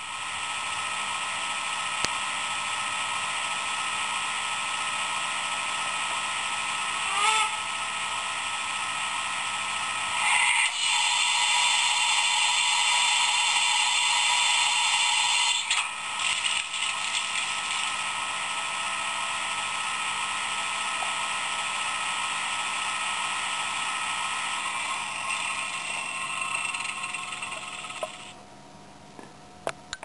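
Roco H0 model steam locomotive's sound decoder playing its standing-steam sounds: a steady hiss with a brief rising tone about seven seconds in, louder from about ten to fifteen seconds in, and dropping away near the end.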